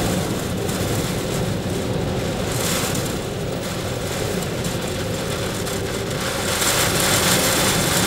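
Storm-force wind of about 110 km/h buffeting a small car, a steady loud rush with gusts swelling about two and a half seconds in and again near the end. Heavy surf breaks beneath it.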